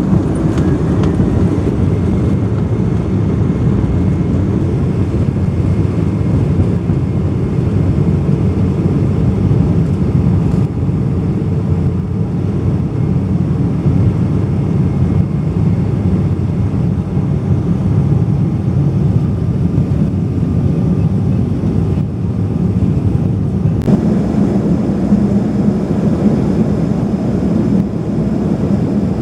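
Jet airliner cabin noise during the takeoff run and climb: the engines at high power give a loud, steady rumble mixed with rushing air. About twenty-four seconds in it changes sharply to steady cruise cabin noise with a low hum.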